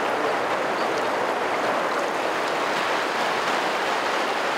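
River water rushing over stones in shallow rapids: a steady, even rush.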